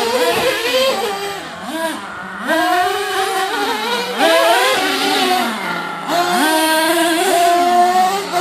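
Small nitro engines of RC monster trucks, including an HPI Savage X, revving up and easing off over and over: a high buzz whose pitch climbs and drops every second or two, with two engines at different pitches overlapping at times.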